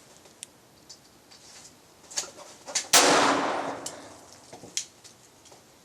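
A few light metallic clicks from handling the Glock with its Tactical Solutions .22 LR conversion kit, then a single .22 rimfire pistol shot about three seconds in with a long echoing tail, and one more click near the end. The gun is being cleared and fired again through a run of feeding malfunctions.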